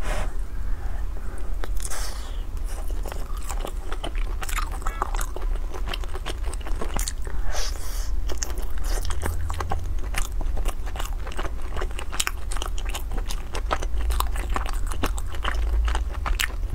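Close-miked biting and chewing of sticky glutinous rice dumplings with a black sesame filling. The mouth sounds come as many short sharp clicks and smacks, over a steady low hum.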